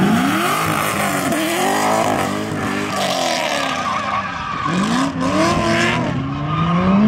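A Corvette drift car sliding on track, its engine revving up and down in repeated rising and falling sweeps while the tyres squeal.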